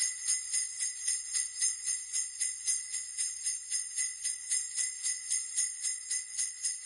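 Sleigh bells jingling in a steady, even shaking rhythm, about four shakes a second, with a bright, high ringing.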